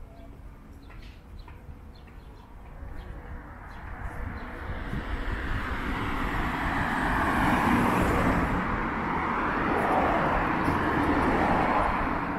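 A road vehicle approaching and passing close by: engine and tyre noise swelling over several seconds, loudest in the second half, then easing off near the end.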